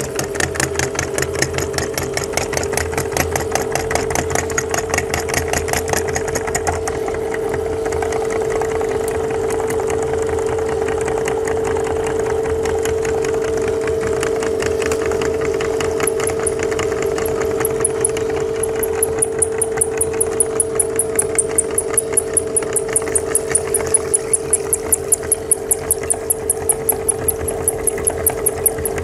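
Belt-driven meat grinder running steadily with a constant mechanical hum as jelly is fed through it; past the middle, a regular rapid clicking joins in.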